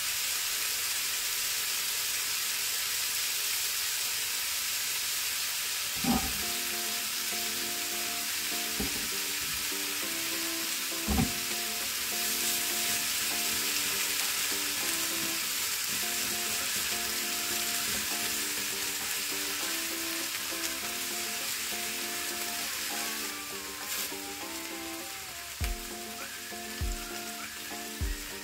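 Onions, shimeji mushrooms and scallops sizzling in a frying pan as they are stirred with a spatula, with sharp knocks of the utensil against the pan about six and eleven seconds in and a few lighter ones near the end. Soft background music with held notes plays underneath from about six seconds in.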